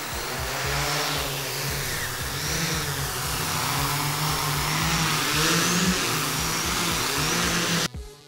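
X8 octocopter's electric motors and propellers humming and whining under heavy thrust while towing, the pitch rising and falling as the throttle changes, over a rushing noise. The sound cuts off abruptly near the end.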